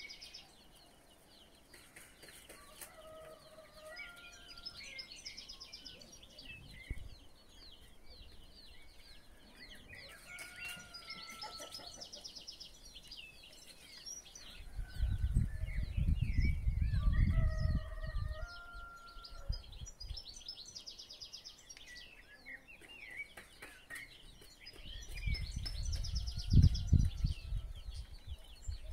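Chickens clucking among many small birds chirping. Two spells of low rumble, the loudest sound here, come about halfway through and again near the end.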